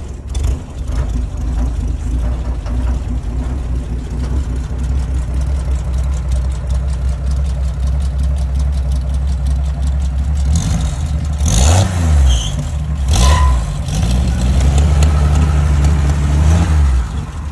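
Six-cylinder engine of a 1955 Willys Jeep Utility Wagon running at a steady idle, revved briefly twice about two-thirds of the way through, then held a little faster before dropping back near the end. The motor is a freshly rebuilt original.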